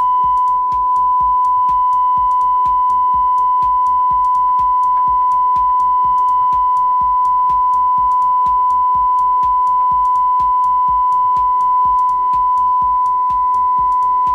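Steady 1000 Hz sine test tone from a loudspeaker driven by a QSC USA 1300 power amplifier. For about the first half second the amplifier is clipping, adding an extra overtone to the tone; then the tone runs clean.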